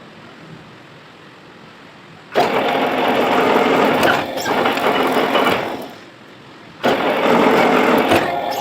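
Manual lathe running with mechanical noise in two runs. It is quiet for the first couple of seconds, then starts abruptly, dies away about six seconds in, and starts again abruptly near the end. This is the start-stop pattern of thread-cutting passes.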